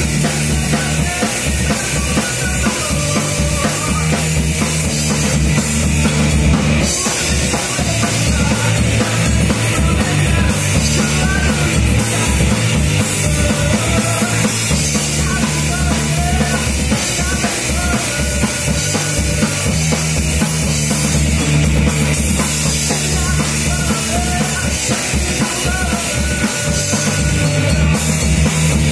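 Loud live rock band: electric guitar, bass guitar and drum kit playing, with a singer singing into a microphone.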